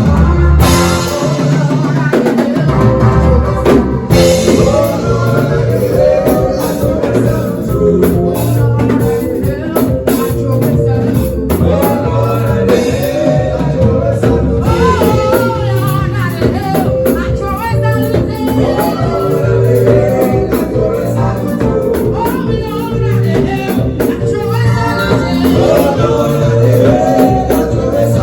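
A live band rehearsing a praise song: drum kit and other instruments playing a steady groove, with singing over it.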